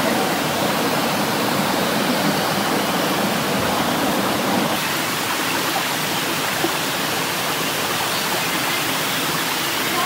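Steady rushing of a waterfall cascading over rocks. The deeper part of the rush drops a little about five seconds in.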